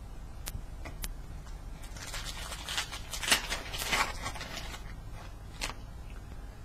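Foil trading-card pack wrapper being torn open by hand: a crinkling, crackling tear lasting about two seconds in the middle, with two louder rips, and a few light clicks before and after.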